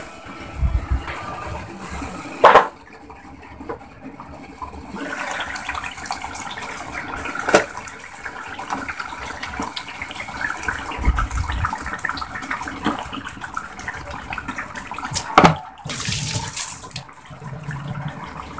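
Curry masala sizzling and bubbling in a marble-coated pot on a gas stove while raw chicken pieces go in, with a few sharp clacks of utensils against the pot and a brief hiss near the end.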